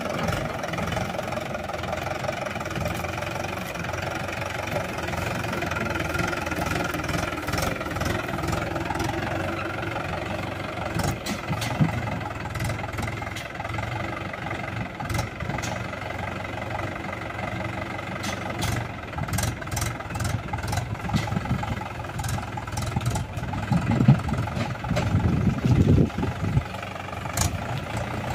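Mahindra 475 DI tractor's four-cylinder diesel engine running steadily while it pulls a Shaktiman rotavator tilling dry soil. Sharp clicks and knocks come in from about halfway through, and a few heavier low thumps sound near the end.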